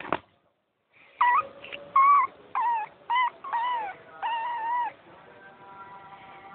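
A cat mewing repeatedly: about six short, high-pitched calls that bend up and down in pitch, after a single knock at the start. Faint steady tones follow near the end.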